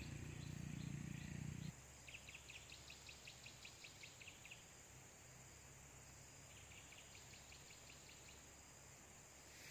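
Faint outdoor ambience: a low rumble cuts off suddenly under two seconds in. After it come two runs of rapid high chirps from an animal, about five a second, each run lasting a couple of seconds.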